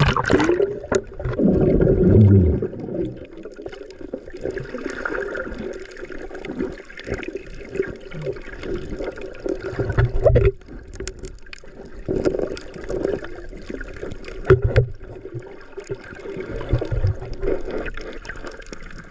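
Sea water splashing and gurgling, with a few sharp knocks.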